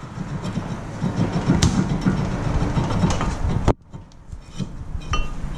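A 2010 Honda Civic's stuck front brake rotor being twisted and knocked loose on its hub: a dense metallic scraping rattle with a couple of sharp knocks, which breaks off abruptly about two-thirds of the way through, then a single click near the end.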